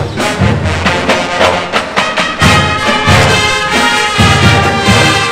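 A university marching band playing live, brass section over drums, with loud repeated low-brass notes carrying the beat.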